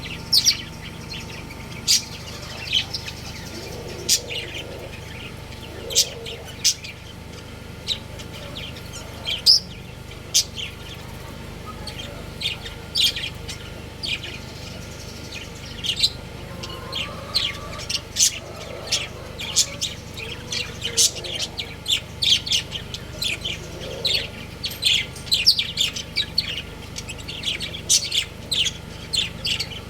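Budgerigars chirping: short sharp chirps, scattered at first and coming thick and fast from about two-thirds of the way in.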